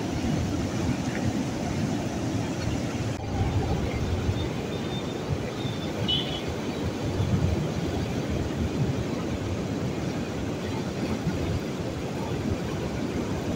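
Bagmati River in monsoon flood, its fast, turbulent water rushing past close by with a steady low rushing noise.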